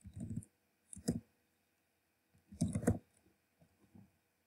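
Computer keyboard keys clicking in three short bursts of typing, with silent gaps between.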